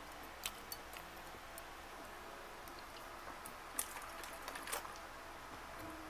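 Faint close-miked chewing and mouth sounds, with a few short soft clicks scattered through.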